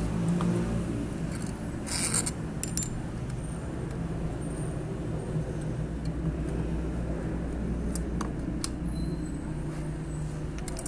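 Scattered clicks and a short scrape as the metal and plastic parts of a Yamaha XJ900S Diversion carburettor bank are handled and pried apart, over a steady low rumble.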